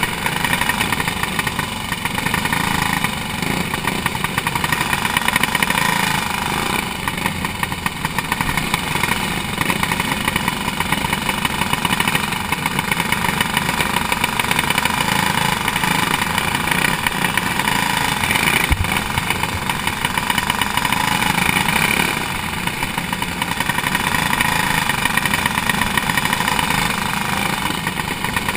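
Racing go-kart engine running hard on a dirt oval, heard from a camera mounted on the kart. The sound eases off briefly every several seconds and builds again, as the kart goes through the turns and accelerates down the straights.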